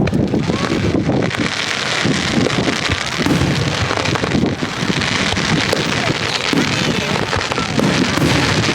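Fireworks crackling densely and continuously close overhead, with strong wind buffeting the microphone.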